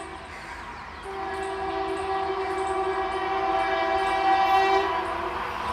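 Indian Railways WAP4 electric locomotive horn sounding one long blast, starting about a second in and stopping a little before the end, as the express approaches at speed. Under it the approaching train's rumble grows louder, with regular clicking of wheels over the rail joints.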